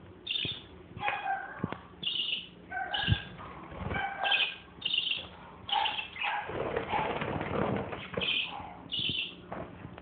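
Caged parakeets chirping: short high chirps about once a second, with a few sharp clicks. There are a couple of seconds of wing-fluttering noise past the middle.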